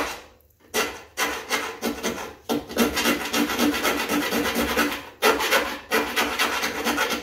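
Hand file rasping on sheet steel in quick back-and-forth strokes, enlarging a drilled snorkel mounting hole in the Land Cruiser's body, with two short pauses.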